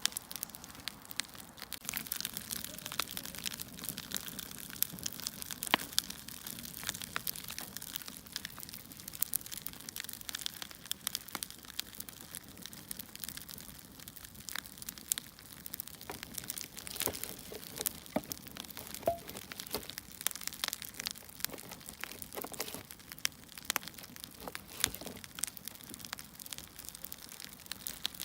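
Wood fire crackling: irregular sharp pops and snaps over a soft, steady hiss, with a few louder snaps along the way.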